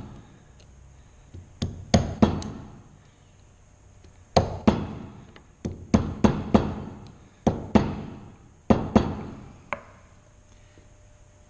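Wood chisel being struck on its handle as it cuts a groove in wood: about a dozen sharp knocks, mostly in quick pairs or threes, each dying away briefly.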